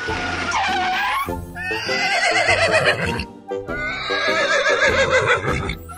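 Cartoon background music with a steady beat, over three high, quavering whinny-like calls from an animation sound effect.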